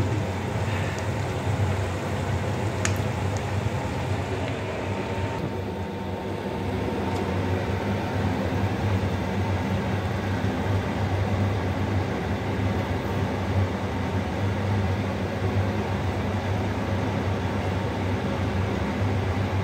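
Ghee simmering in a steel karahi over a gas burner: a steady hiss under a constant low mechanical hum.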